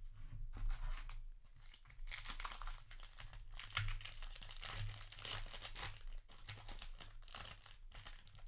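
Foil wrapper of a Magic: The Gathering play booster pack crinkling in the hands and being torn open, a dense run of crackling through the middle.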